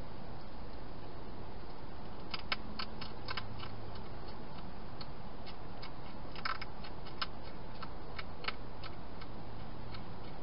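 European hedgehog chewing dry food inside a plastic feeding box: irregular crisp clicks and crunches starting about two seconds in and thinning out near the end, over steady hiss.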